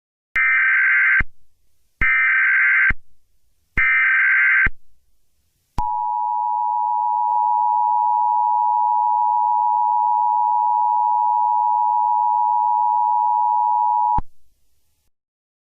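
Emergency Alert System tones: three short bursts of SAME header data, each just under a second long, then the two-tone EAS attention signal held steady for about eight seconds before cutting off suddenly. This sequence marks the start of an emergency alert broadcast.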